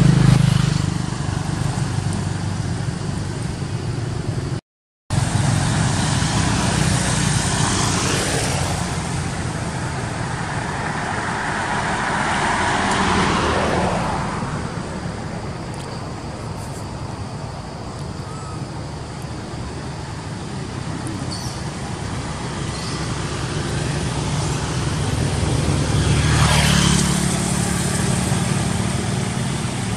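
Road traffic: motor vehicles passing, each swelling and fading away, the loudest pass about twelve to fourteen seconds in and another near the end, over a steady low rumble. The sound cuts out completely for a moment about five seconds in.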